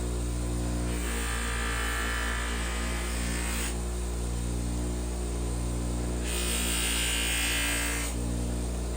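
Electric power tool's motor running steadily with a low hum, while something is pressed against it twice, each time for a couple of seconds, giving a higher grinding hiss.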